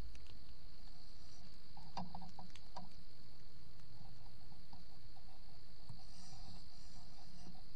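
Crickets trilling: a steady, even high-pitched drone, with a few faint clicks about two to three seconds in.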